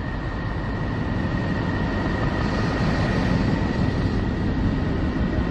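Space-probe 'sound of Neptune' sonification: a steady low rumbling drone with a thin high tone held through it.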